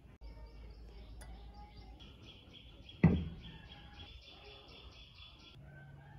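A single sharp knock about three seconds in, fading quickly, over rhythmic high-pitched background chirping at about five chirps a second that stops suddenly near the end.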